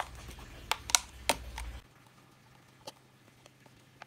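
Thin clear plastic cup handled in the fingers: a few sharp plastic clicks and crackles in the first second and a half, then only faint ticks.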